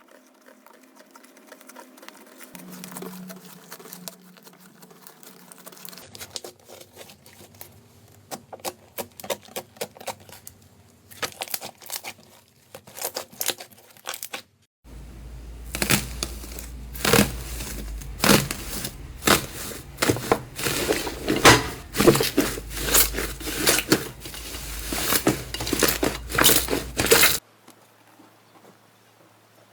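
Slime being squeezed and poked, giving irregular crackling and popping clicks. The popping is fainter at first, then after a brief break turns louder and denser before it drops away near the end.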